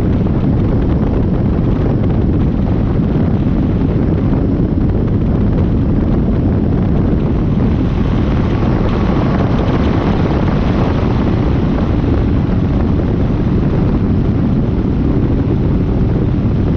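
Small airplane in steady cruising flight, heard from a camera on its tail: a loud, even rush of wind on the microphone with the engine's drone under it.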